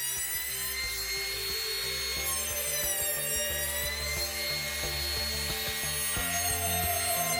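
Electric hand planer running and cutting across a wide pine board, its high motor whine dipping in pitch and recovering as the blades bite on each pass.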